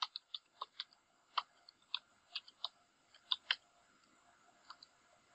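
Computer keyboard keys clicking as a web address is typed: quick, irregular keystrokes for about three and a half seconds, then a faint tap or two near the end.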